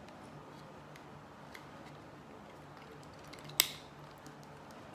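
Small clicks and one sharp metallic click about three and a half seconds in, with another at the very end, from an iPod Classic's steel back case being handled and pressed against its front shell.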